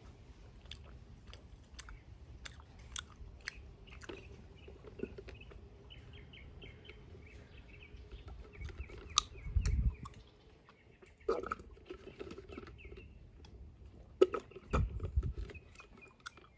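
Close-miked mouth sounds of a person chewing and sipping an iced tea drink through a wide straw: small wet clicks throughout, with louder slurping sips about halfway through and again a couple of seconds before the end. Faint bird chirps in the background.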